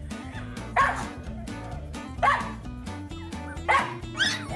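A Shiba Inu puppy yipping: four short, high-pitched yaps spread over a few seconds, the last two close together, over background music.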